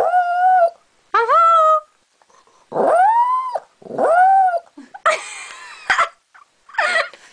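A Maltese dog 'singing': a run of about six short, pitched vocal calls with half-second gaps, each rising and then falling in pitch, the fifth one rougher than the rest.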